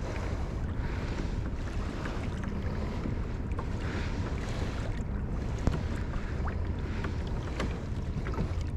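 Water washing against a kayak hull, with wind rumbling on the microphone. A sharp click a little past the middle, with a few fainter ticks.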